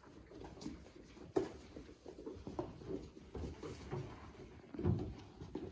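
Month-old Weimaraner puppies scampering and tussling on a sheet over the floor: uneven patter of paws with scattered light thumps, a sharper knock about a second and a half in and a louder scuffle near the end.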